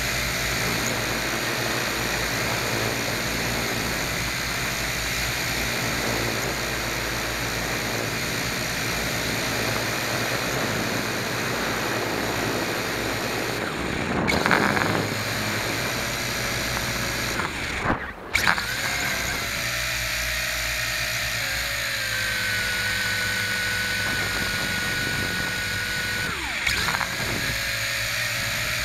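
A radio-controlled aircraft's motor and propeller running steadily, heard from its onboard camera with wind rushing over the microphone. There are two brief louder bursts near the middle, and a clearer steady whine comes through in the second half.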